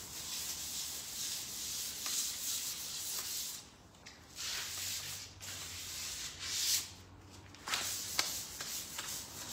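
Hand sanding the edges of a pine IKEA Ivar cabinet: runs of scratchy rubbing strokes, with short pauses about four and seven seconds in. It is a light sand to knock back raised wood fibres before the top coat.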